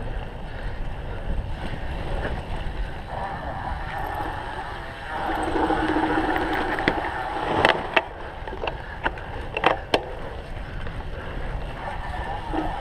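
Wind buffeting the microphone over the rumble and rattle of a cyclocross bike riding over rough ground, with several sharp clicks about eight to ten seconds in.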